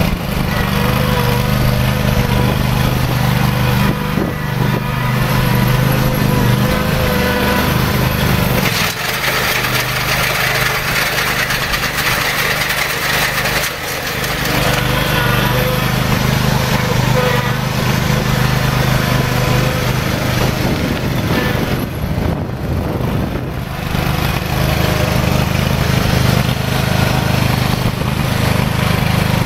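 Kubota T1760 lawn tractor's 18 hp liquid-cooled Kawasaki V-twin engine running steadily. From about nine seconds in, the low hum drops back and a higher hiss rises for about five seconds before the steady running sound returns.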